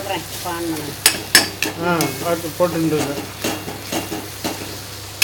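A spoon stirring and scraping grated raw mango as it cooks in an aluminium kadai, with a steady frying hiss and several sharp knocks of the spoon against the pan.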